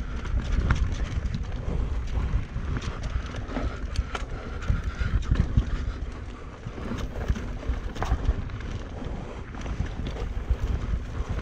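Mountain bike ridden fast down a rough trail: wind buffeting the microphone over frequent sharp clicks and knocks from the bike rattling over the ground.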